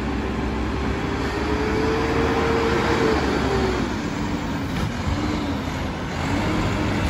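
Mack LEU garbage truck with a McNeilus side-loader body driving along the street. Its engine note climbs slightly over the first few seconds, then drops and wavers about three and a half seconds in.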